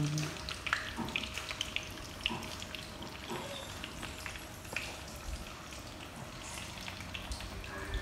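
Hot oil sizzling and crackling in a deep fry, with irregular small pops throughout, like pork cutlets frying. A faint steady hum lies under it.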